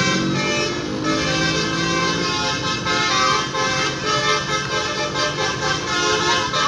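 A bus's 'telolet' horn, a multi-tone musical air horn, playing a tune as a series of held chords that shift in pitch.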